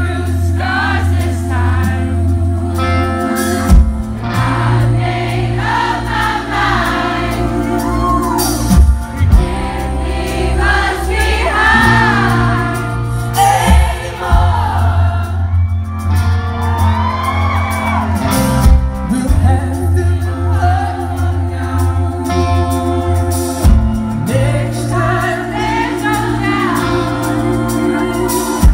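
Live pop-rock band music: a male voice singing over acoustic guitar, keyboards and bass guitar, with the bass note changing every few seconds, heard from within the audience of a concert hall.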